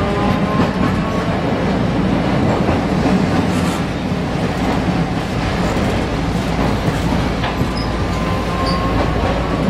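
A Manyosen street tram running along its track, heard from inside the car: a steady rumble of wheels on rails with a low hum. A motor whine climbs slowly in pitch at the start and again near the end.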